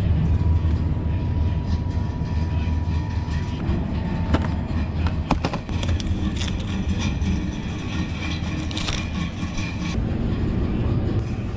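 Steady low rumble of supermarket background noise from the refrigerated display cases and store machinery, with a few sharp clicks of plastic packaging being handled about four and five seconds in.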